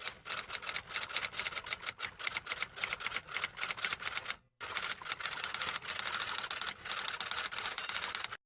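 Rapid clatter of typing keys, many fast uneven clicks, breaking off briefly about halfway through and then carrying on.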